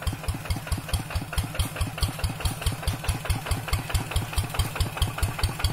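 Single-cylinder diesel engine of a two-wheel hand tractor chugging at a steady, even beat of about five thuds a second as it drives along pulling a trailer.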